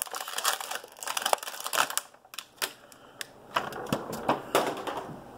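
Stiff clear plastic blister being pried and peeled off an action figure's cardboard backing card: a run of sharp crackles and clicks in uneven clusters, with short pauses between.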